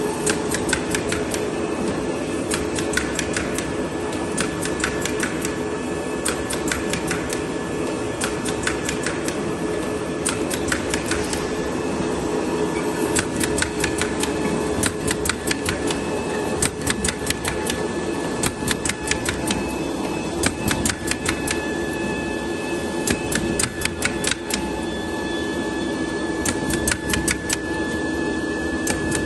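Ortigia MF tape application machine running: a steady hum with a thin steady whine, overlaid by rapid clicking and clattering that comes in irregular clusters as the tape heads and rollers work on the cardboard.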